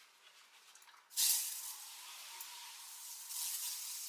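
Disinfectant spray hissing in a long continuous spray onto a mirror. It starts suddenly about a second in and grows louder near the end.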